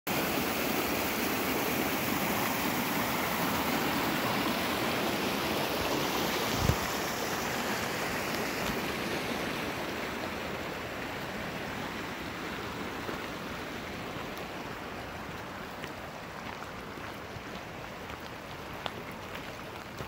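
Shallow creek rushing over rock, a steady rush of water that slowly fades as it falls behind. A single sharp thump about a third of the way in.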